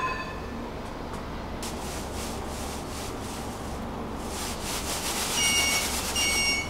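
Tram's door-closing warning signal: two short electronic beeps about 0.8 s apart near the end, after a few seconds of rushing hiss over the steady hum of the stopped tram.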